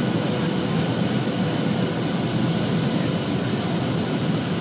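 Jet airliner cabin noise heard inside the cabin beside the wing: a steady low rushing of the jet engines and the airflow over the fuselage, with a faint steady hum.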